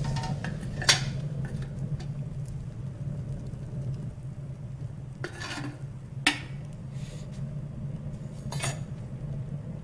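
Steady low drone of a wood-burning stove fire, with two sharp metal clinks from a kettle and tin mugs, about a second in and again past six seconds, and a couple of short hissing sounds in between.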